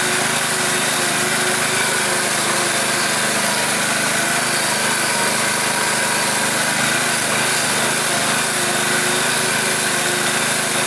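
Engine of an all-terrain vehicle running steadily as it drives through snow, heard from inside its cab.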